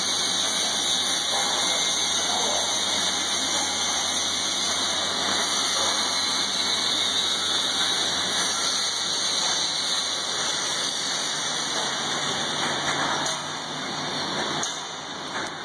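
Automatic welding machine for shock absorber base cups and spring seats running, a steady hiss that eases somewhat about thirteen seconds in.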